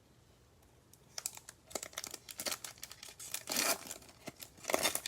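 Wrapper of a Prizm basketball card pack crinkling and tearing as it is opened: a run of crackly rustles starting about a second in, loudest near the middle and again near the end.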